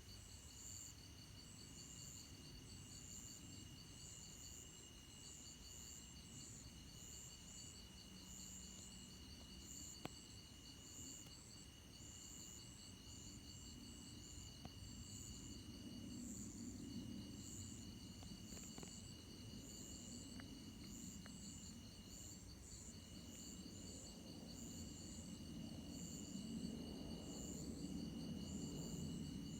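Crickets and other night insects chirping steadily. Under them, the low rumble of an approaching Boeing C-17A Globemaster III's four turbofan engines swells gradually over the second half. A single sharp click comes about a third of the way in.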